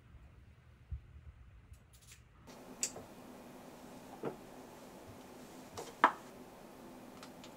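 Small handling sounds at a bathroom washbasin: a few sharp clicks and knocks as a toothbrush and cup are taken from the shelf and holder, the loudest about six seconds in, over a steady faint hum. The first couple of seconds are nearly quiet apart from a soft thump.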